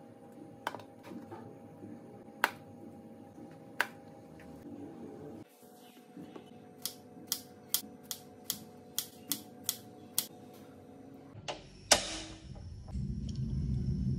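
Kitchen knife cutting on a plastic cutting board: scattered sharp taps at first, then a regular run of taps about three a second, and one louder knock near the end.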